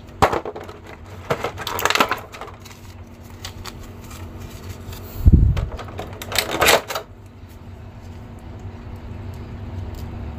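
Clear plastic blister tray crackling and clicking as a small plastic action figure is worked out of it and handled, with a dull thump about five seconds in.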